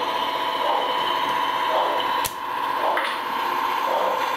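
LGB G-scale electric model railcar running along the track: a steady motor and gear whine with wheel noise, and one sharp click about halfway through.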